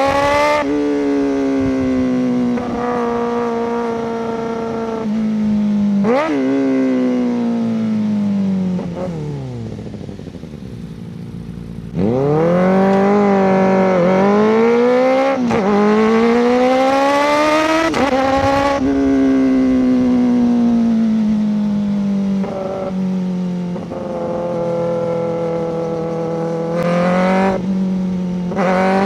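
Kawasaki ZX-4RR 399 cc inline-four sport bike revving through a Coffman's slip-on exhaust on the move. The engine pulls up through the gears with quick drops in pitch at each upshift, rolls off with the pitch sinking, and about halfway through makes its hardest, highest-pitched run before easing back and holding a steadier note near the end.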